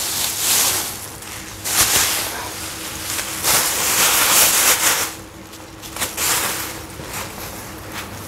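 Thin plastic bag crinkling and rustling in bursts as a folded mosquito net is pulled out of it and the bag is handled. The loudest rustles come about two seconds in and between three and a half and five seconds, then it turns quieter and more scattered.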